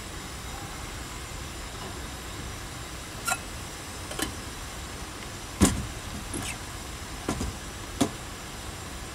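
Cookware handled at a camp stove: about six sharp knocks and clinks as a metal pot, its lid and a coffee press are set down on the metal stove table and grate, the loudest just past the middle. A steady background noise runs underneath.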